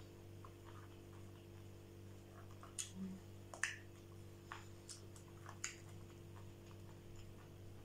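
Quiet eating sounds from someone eating sushi with wooden chopsticks: a few scattered sharp clicks and mouth smacks, the loudest two about three and three-and-a-half seconds in, over a steady low hum.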